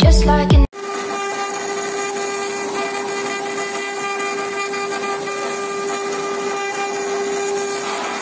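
CNC router spindle running at a steady speed as its bit carves a relief into a wooden panel: an even, constant whine with a hiss of cutting. Before it, electronic music with a heavy beat cuts off abruptly under a second in.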